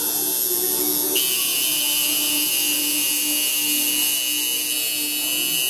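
Electric tattoo machine buzzing steadily as the needle works on the skin during a rib tattoo.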